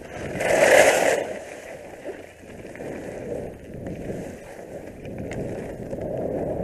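Skis scraping and sliding over hard, chopped-up piste snow on a downhill run, a continuous rough hiss that swells loudest about a second in and then carries on lower and uneven.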